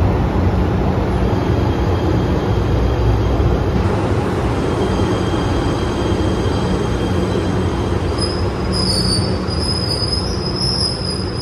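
PATH subway train pulling into an underground station platform, a steady low rumble of wheels on rail as the cars pass. About eight seconds in, a high wavering wheel squeal sets in as the train slows.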